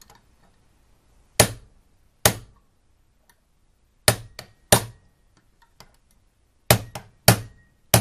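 Hammer blows striking the case of a braided-cable combination lock, about seven sharp strikes, several in pairs under a second apart. The blows are denting the lock and starting to split its case, while the locking mechanism holds.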